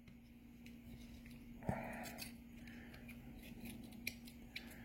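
Faint small clicks and a brief scrape of an X-Acto knife being handled and set into a blade-sharpening jig, the loudest click about a second and a half in.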